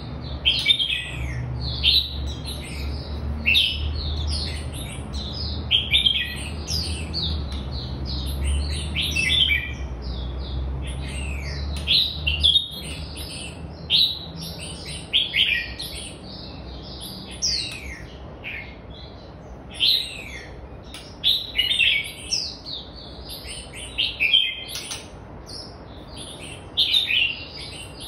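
Red-whiskered bulbul singing: short, quick phrases of downward-sweeping whistled notes, about one phrase a second. A low steady hum underneath cuts off about halfway through.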